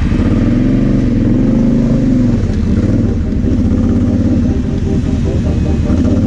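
Kawasaki KFX 700 quad's V-twin engine running at low speed, its revs rising and falling twice in the first two seconds, then holding steadier.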